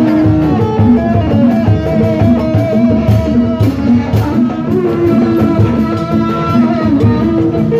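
Loud Sundanese procession music over a street sound system: a steady drum beat under a plucked, guitar-like melody.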